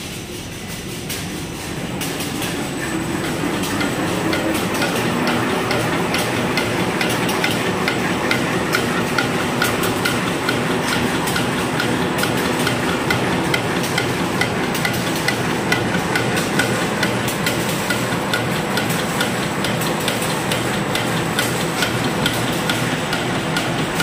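Fully automatic tissue paper machine running: a steady, fast mechanical clatter of rapid clicks and knocks from its rollers and folding mechanism. It grows louder over the first few seconds, then holds steady.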